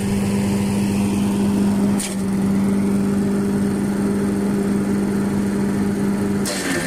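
Petrol engine of a branch shredder (wood chipper) running with a steady, even hum. Shortly before the end the steady hum breaks off and gives way to a rougher, noisier sound.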